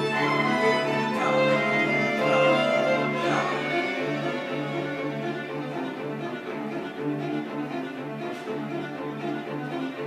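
A string quartet of two violins, viola and cello playing live, a low note held underneath while the violins move above it. It is loudest in the first few seconds and then eases off.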